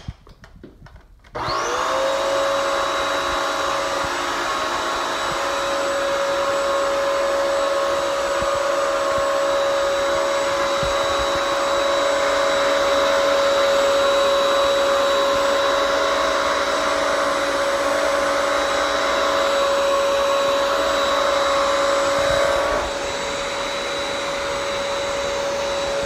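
Bissell Crosswave Pet Pro wet-dry vacuum switched on about a second and a half in, its motor spinning up with a rising whine and then running steadily with a high hum and whine over rushing air. It drops a little in loudness near the end, after a few light handling clicks at the start.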